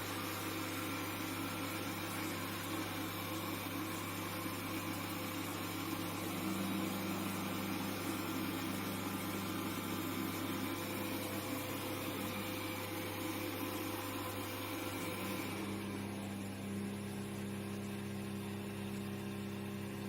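Robot vacuum-mop running, a steady motor hum with a hiss from its suction fan. About three-quarters of the way through the higher hiss drops away and the hum changes.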